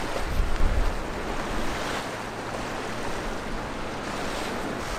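Sea surf washing steadily on a rocky shore, with wind buffeting the microphone in gusts during the first second or so.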